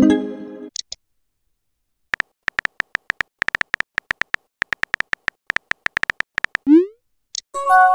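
Smartphone messaging-app sound effects: a short message tone, then several seconds of quick keyboard-tap clicks as a message is typed, a short rising swoosh as it sends, and a chime of a few steady notes near the end.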